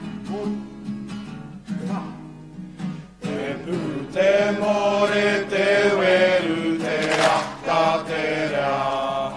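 Acoustic guitar strumming, then voices come in about three seconds in, singing a Māori song to the guitar.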